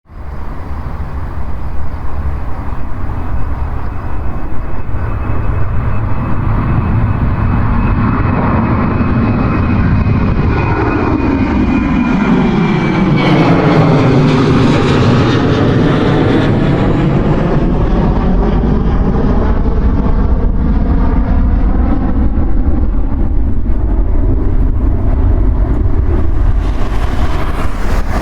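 Airliner taking off and passing by: a steady engine rumble with a high whine that slides down in pitch, closest and most intense about halfway through, then a lower, broader rumble as it moves away.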